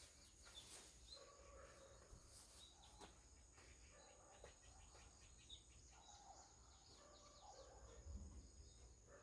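Near silence: faint outdoor background with a few scattered faint chirps and ticks.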